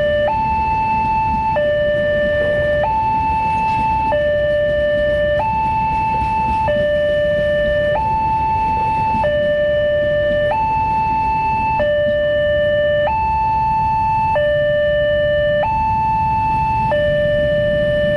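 Indonesian level-crossing warning alarm sounding from its pole-mounted loudspeaker: a steady electronic two-tone, alternating high and low about every second and a quarter. It signals that a train is passing. Under it runs the low rumble of the passing train.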